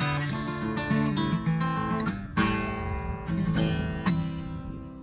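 Acoustic guitar playing the closing bars of a song: a few strummed chords and picked notes, ending on a last chord about four seconds in that rings out and fades.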